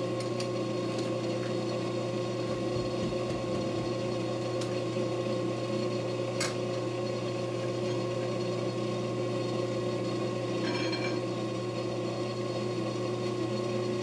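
Manual metal lathe running steadily, an even motor and gear hum, with a couple of light ticks.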